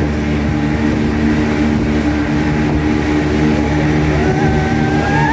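Speedboat engine running steadily at speed as the boat crosses open water, a constant low hum with water rush. About four seconds in, a separate high tone rises and holds.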